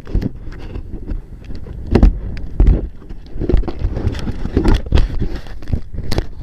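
Strong wind buffeting the microphone in irregular gusts, with scattered clicks and knocks.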